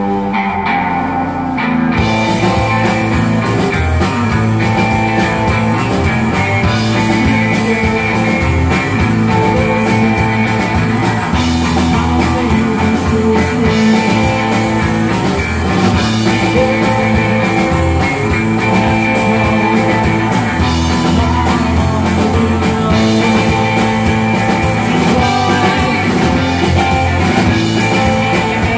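Live rock band playing electric guitars and a drum kit, the drums and cymbals coming in fully about two seconds in.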